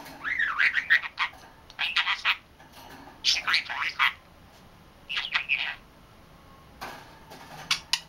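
Young pet budgerigar chattering, quick chirpy warbling in about five short bursts with brief pauses between them.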